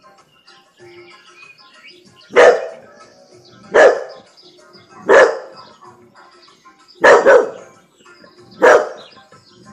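A miniature bull terrier barks loudly, in single barks about every one and a half seconds with a quick double bark near the end, six barks in all. Faint music plays between the barks.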